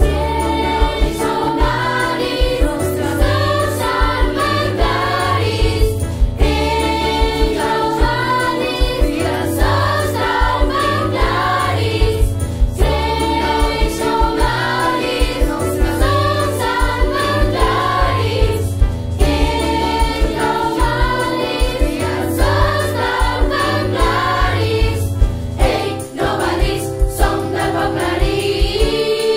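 A large group of voices singing a song in Catalan over a band with a steady drum beat and bass. Near the end the music settles onto a long held chord.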